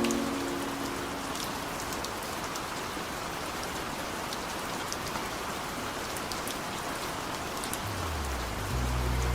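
Steady rain falling, an even hiss with scattered sharp drop ticks. Low sustained music notes come in near the end.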